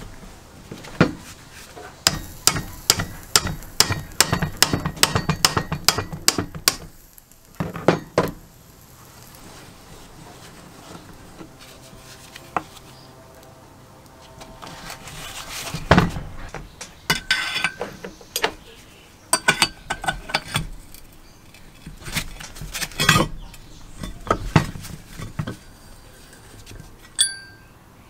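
Metal clicking and clinking of hand tools and parts on a rusty forge blower as it is taken apart with a gear puller and wrench. A fast run of clicks lasts several seconds, then come separate knocks and clinks, the loudest about halfway through.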